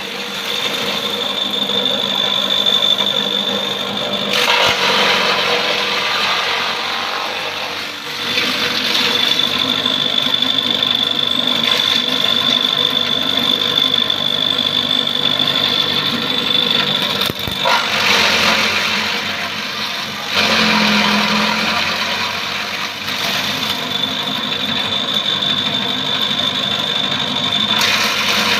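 Homemade electric grass chopper running with a steady high-pitched whine. Twice the whine gives way to a rougher, noisier stretch for a few seconds, typical of grass being fed through and cut.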